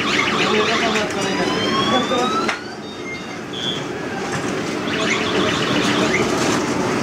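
Busy street traffic noise with a horn or siren-like tone rising in pitch for about a second and a half, starting about a second in, and bursts of rapid rattling near the start and again later.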